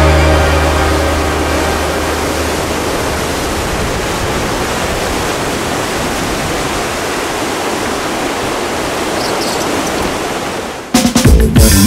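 Steady rush of lake surf breaking, heard after background music fades out in the first second. Music cuts back in loudly near the end.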